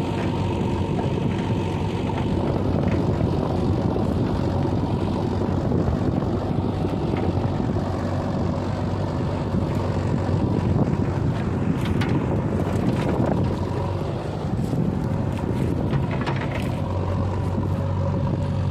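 Diesel engines of earthmoving machines, a backhoe loader and tractors, running steadily under work, with a few short clanks in the second half.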